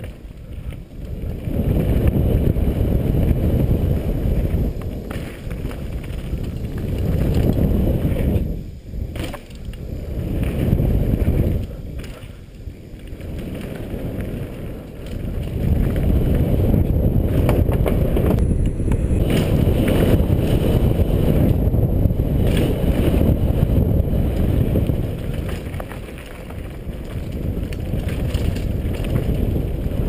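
Downhill mountain bike riding: the tyres rumble over the dirt trail and wind buffets the helmet-mounted camera, rising and falling with speed and dipping briefly a few times.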